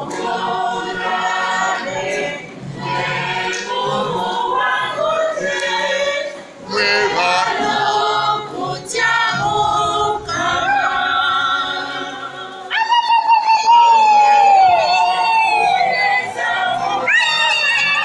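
A choir singing. About two-thirds of the way through, louder high wavering voices come in over it.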